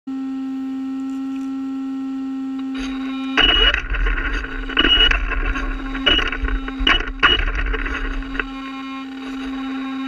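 Traxxas Rustler electric RC car driven in about five short spurts, its motor whirring loudly with each spurt, over a steady electrical whine that runs when the car sits still.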